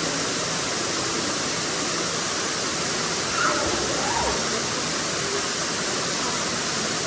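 Waterfall's steady rushing water, with faint voices briefly in the middle.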